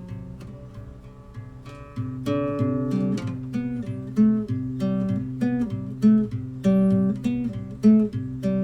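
Instrumental background music of picked, guitar-like notes in a steady rhythm, quiet at first and louder from about two seconds in.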